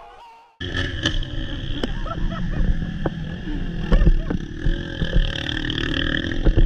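Dirt bike running on a trail ride, with heavy low wind rumble and a scatter of sharp knocks; it cuts in abruptly about half a second in.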